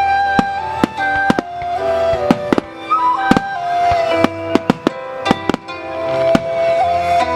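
Fireworks display set to music: a slow melody of held notes plays throughout while about a dozen sharp firework bangs and cracks go off at uneven intervals.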